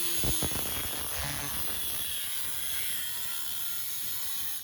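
A small power tool cutting through old fender sheet steel, running with a steady high buzzing whine, with a few knocks against the metal about half a second in.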